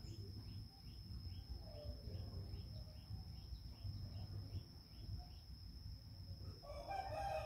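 Background insect sound: a steady high-pitched drone with a short chirp repeating about twice a second, over a low rumble. Near the end a rooster starts crowing.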